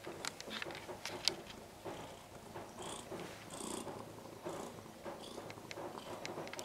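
Domestic cat purring close to the microphone. A sharp click comes about a second in, and there are brief hissy rustles around three seconds in.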